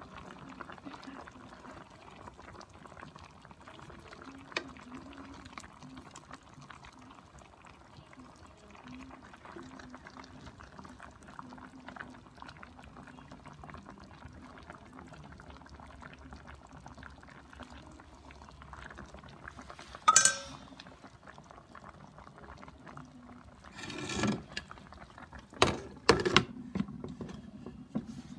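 Chicken simmering in sauce in an electric skillet, a soft steady bubbling. A ringing clink comes about two-thirds of the way in. Several loud clanks follow near the end as the skillet's glass lid is put on.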